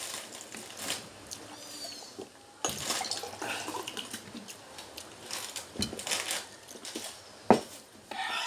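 Spoons clinking and scraping against bowls and plates as people eat, in a run of scattered sharp clinks, the loudest about seven and a half seconds in.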